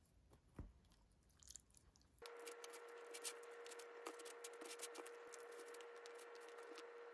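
Faint eating sounds: wooden chopsticks clicking against a plastic takeout tray of noodles, with chewing. A steady hum comes in about two seconds in.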